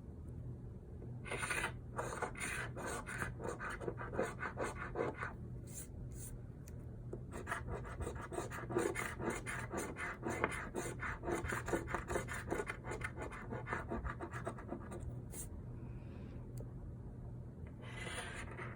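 Scratch-off lottery ticket being scratched, rapid rasping strokes across the card's coating in two long spells with a short pause between, and again briefly near the end, over a steady low hum.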